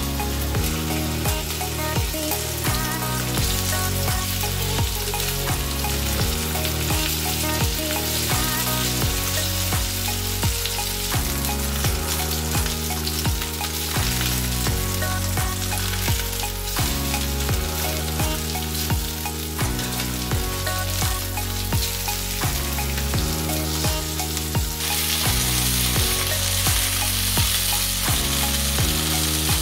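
Turkey breast slices sizzling as they sear in hot oil in a stainless-steel frying pan, a steady frying hiss that grows louder a few seconds before the end. Background music with a repeating bass line plays underneath.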